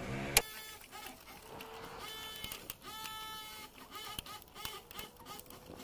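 A screwdriver working the terminal screws of a three-phase circuit breaker: small metallic clicks and scrapes, with one sharp click near the start. Two short pitched calls sound in the background in the middle.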